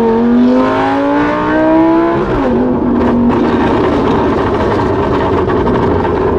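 Lamborghini Gallardo Super Trofeo Stradale's V10 through a straight exhaust, heard from inside the cabin under full-throttle acceleration. The note climbs, drops sharply at an upshift about two seconds in, then holds a steadier note.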